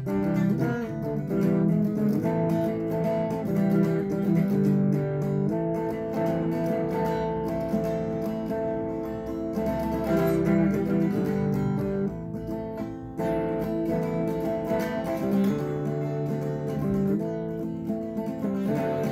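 Guitar music, with chords strummed and plucked and notes held and changing every second or so.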